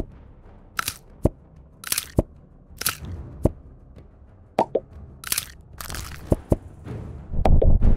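Sound effects for plastic action-figure parts moving by stop-motion: a series of sharp clicks and crunchy snaps, several with a short high swish, as the pieces shift and click into place. About half a second before the end, a loud, fast rattling run starts.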